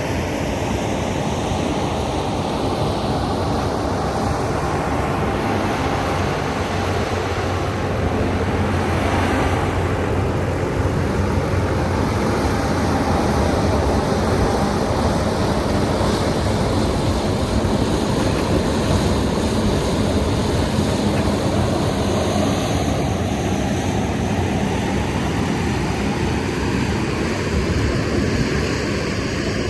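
Gas-fired corn dryer with its electric fan running: a loud, steady roar with a low hum.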